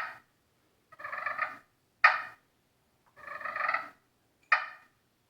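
Slate side of a Cutter Supreme glass-over-slate friction pot call worked with a striker to imitate a wild turkey hen. It gives a cluck, then two short rolling purrs, each followed by a sharp cluck.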